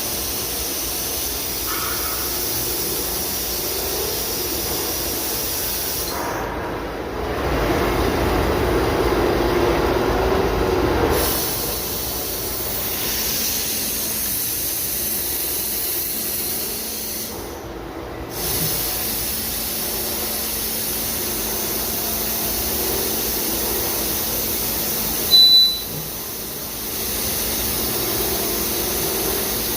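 Daito DNF-1050 CNC beam drill line running, a steady hissing machine noise that swells louder for a few seconds about six seconds in. A short, loud high-pitched beep sounds near the end.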